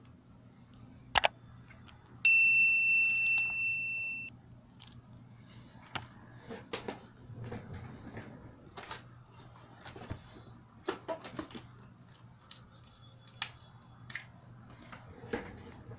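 A sharp click about a second in, then a single bright bell ding that rings and fades over about two seconds: the click-and-bell sound effect of a subscribe animation. Faint scattered ticks and taps follow.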